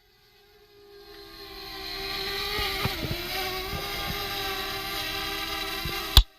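DJI Mavic Air quadcopter's motors and propellers whining as they spin up for takeoff. The whine grows louder over the first couple of seconds, holds steady, and cuts off suddenly near the end.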